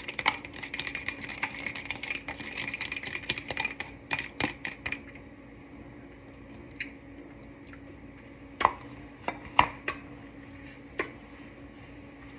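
A utensil stirring and scraping against a bowl, mixing a seasoning of cumin, lime juice and salt: a quick, busy run of clicks and scrapes for about five seconds, then a few separate sharp knocks and clinks.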